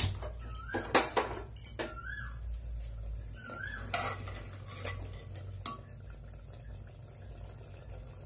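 Metal spoon knocking, clinking and scraping against the inside of an aluminium pressure cooker as cooked mutton curry is stirred, with several sharp knocks in the first few seconds and quieter stirring after about six seconds.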